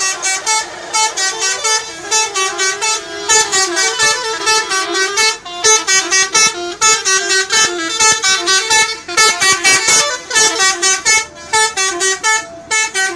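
Bus 'telolet' musical horn playing a fast tune of short, loud horn notes that jump between pitches several times a second, with brief pauses between phrases.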